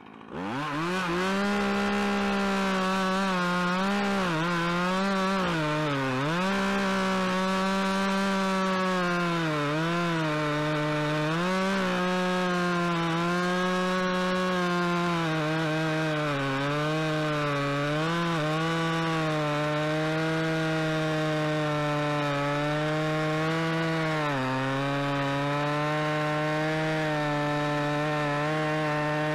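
Husqvarna 445 chainsaw's two-stroke engine running at full throttle while the chain cuts through a large log. Its pitch dips and recovers again and again as the bar is pressed into the wood, and it settles at a slightly lower pitch for the last few seconds.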